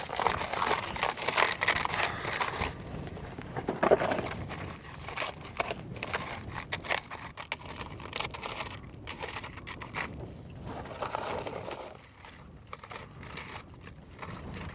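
Rustling and crinkling handling noise with scattered clicks, busiest in the first few seconds, with one sharper knock about four seconds in.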